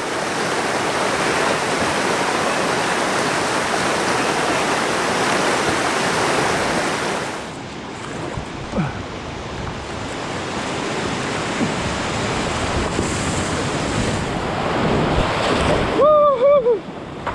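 Rushing river whitewater, a steady loud rush of water with some wind on the microphone. The sound changes abruptly about halfway through, and there is a short pitched call near the end.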